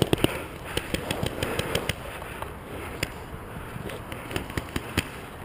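Paintball markers firing in irregular sharp pops, quick and frequent in the first couple of seconds and then more scattered, with one louder shot about five seconds in, over a steady background hiss.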